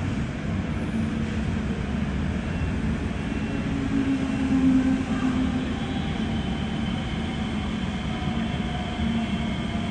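Running noise of a Kawasaki-Kinki C151 metro train, heard aboard: a steady rumble with faint whining tones, briefly louder about four to five seconds in.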